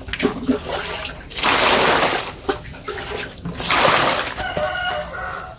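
Water poured in two splashing gushes into a plastic bucket packed with peeled bamboo shoots, about two seconds apart, with smaller splashes and knocks between.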